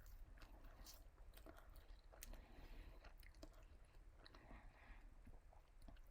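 Faint chewing of KFC french fries, with scattered small crackles and mouth clicks.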